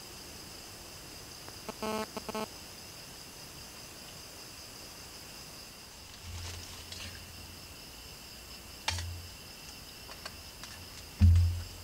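Steady high-pitched chorus of night crickets, with a short pulsing call about two seconds in. Several low thumps follow later, the loudest just before the end.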